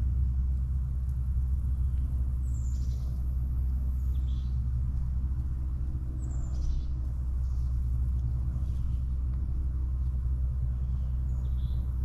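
Steady low rumble with a faint even hum under it. Over the top, about five short high bird calls, each dropping in pitch, come roughly every two seconds.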